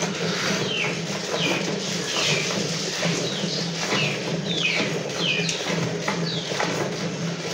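Jets of milk squirting into a plastic bucket as a cow is milked by hand: short hissing spurts that repeat about every half second in the rhythm of the squeezing hands, over a steady low hum.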